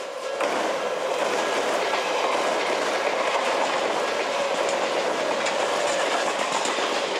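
Odakyu electric train passing close by, with a loud steady rush of wheels and running gear and a clickety-clack of wheels over rail joints. It swells in about half a second in.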